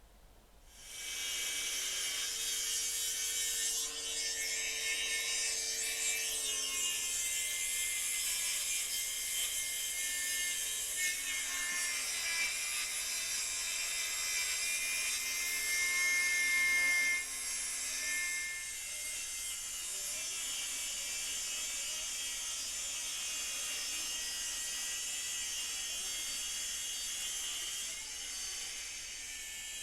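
Circular saw cutting through wood: a steady, high-pitched sawing noise that starts within the first second. It grows loudest just past halfway, drops a step, then carries on steady.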